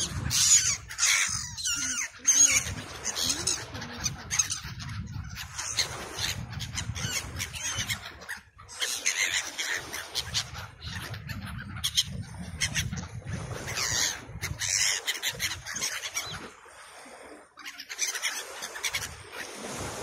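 A flock of gulls calling, many short harsh cries overlapping one another, with a low rumble underneath.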